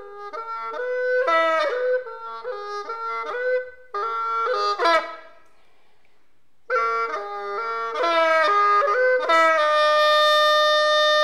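Background music: a reedy wind instrument playing a melody that steps from note to note. It breaks off for about a second and a half around the middle, then ends on a long held note.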